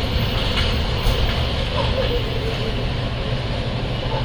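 Steady rumble and hiss of a passenger train running along the track, heard from aboard the coach.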